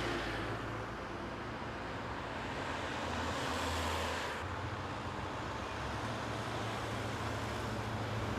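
Road traffic passing steadily along a city street, with one vehicle louder and closer about three to four seconds in.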